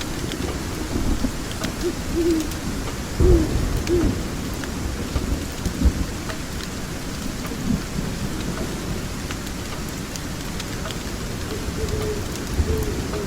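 Steady rain with low rolls of thunder swelling about three and six seconds in, and the light snapping crackle of a wood fire scattered through it.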